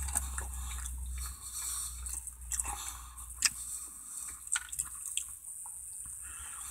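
Wet chewing and mouth smacks of a person eating a saucy chicken barbecue sandwich, with scattered small clicks. A low hum sits underneath, stronger for the first second or so.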